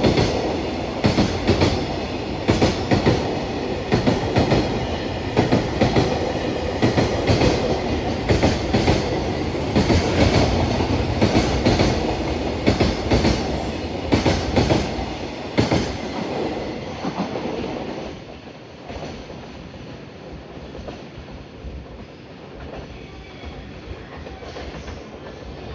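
Freight train of loaded Koki container wagons rolling past at speed, its wheels clattering over the rail joints in quick repeated clicks. About two-thirds of the way through, the clatter dies away and only a fainter rumble is left as the train moves off.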